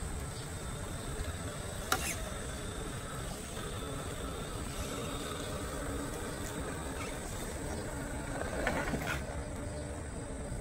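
FMS FJ40 scale RC crawler's electric drive whirring faintly as it crawls through long grass, over a steady low rumble. A sharp click comes about two seconds in and a brief rustle near the end.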